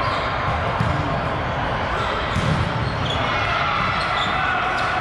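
Volleyball game in play: repeated dull thuds of the ball being hit and bouncing, with players' voices talking and calling over each other in the background.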